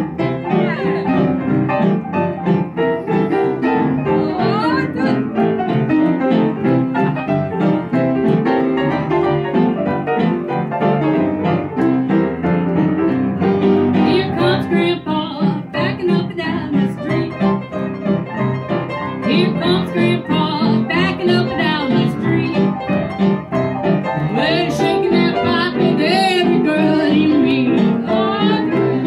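A woman singing live into a microphone, accompanied by an upright piano played in a steady rhythm, with the room's sound around them.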